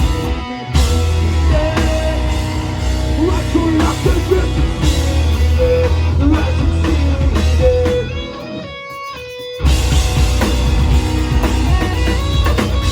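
Live rock band playing loud with electric guitar and drum kit. About eight seconds in the drums and low end drop out for a short break, then the full band crashes back in.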